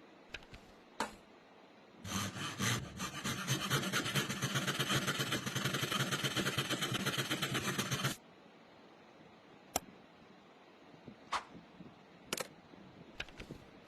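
Sewing machine running for about six seconds with a rapid, even stitching rhythm, then stopping abruptly. A few sharp clicks come before and after.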